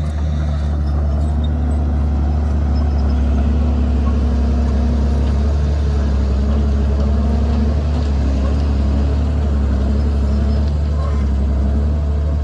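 Komatsu D51PX bulldozer's diesel engine running steadily under load, with a deep, even drone whose pitch wavers slightly as the load shifts.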